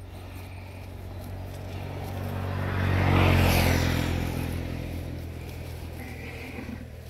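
A motor vehicle driving past, its engine and tyre noise swelling to loudest about three seconds in and then fading away.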